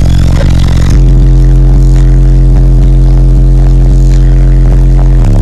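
Car subwoofer system playing music at full volume, heard from inside the cabin: heavy sustained bass notes fill the sound and shift to a new note about a second in and again near the end.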